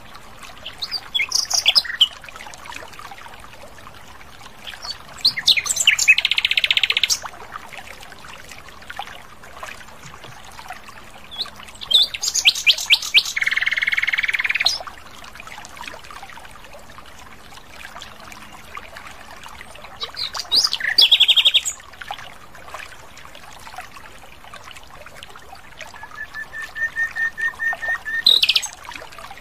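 Common nightingale singing in separate phrases a few seconds apart, five in all. Several phrases are fast runs of rapidly repeated notes, and near the end one is an even row of repeated piping notes that ends in a rising flourish.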